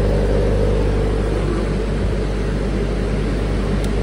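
Doosan 30 kVA diesel generator running steadily under load from an inductive load bank, a constant engine drone. A small click near the end.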